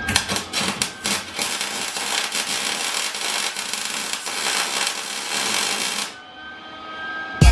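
Electric arc welding on a steel frame: the steady crackling sizzle of the arc, which stops about six seconds in.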